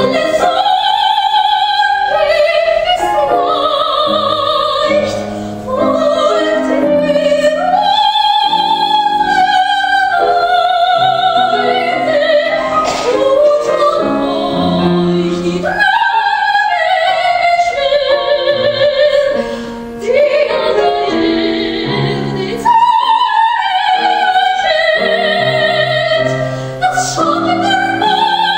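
Operatic soprano singing an aria with piano accompaniment: long held notes with a wide vibrato, phrase after phrase, over sustained piano chords.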